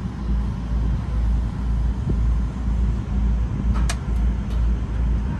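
Steady low rumble of a river tour boat under way, with a brief sharp high-pitched sound about four seconds in.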